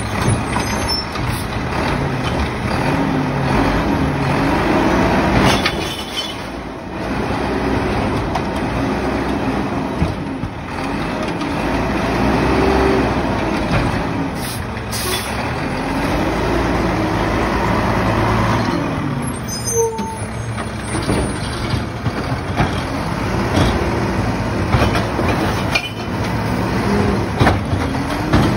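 Mack LEU garbage truck with a McNeilus MA side-loader body, its engine revving up and down again and again as it powers the hydraulic packer, with a few sharp air hisses between the revs. Near the end the automated arm lifts and dumps a cart with a clatter.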